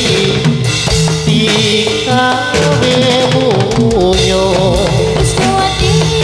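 Live Javanese jathilan music: steady drumming under held pitched instrument notes, with a wavering sung melody line about four seconds in and again near the end.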